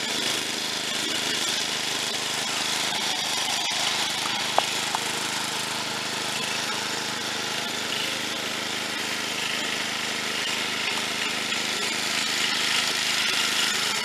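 Snapper rear-engine riding mower's small engine running steadily as it drives across wet grass, with one sharp click about four and a half seconds in. The owner thinks its rubber drive disc is wet and slipping.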